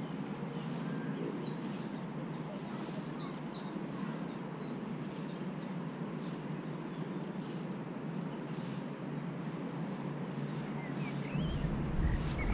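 A small songbird sings short trilled phrases over a steady hiss of outdoor noise, with a few fainter chirps later. Near the end a louder low rumble on the microphone comes in.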